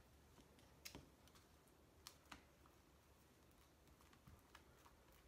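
Near silence with a few faint clicks and taps as a metal spoon spreads soft cream cheese over a flatbread tortilla.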